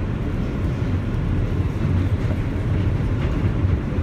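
New York City subway train running along the track, heard from inside the car: a steady low rumble.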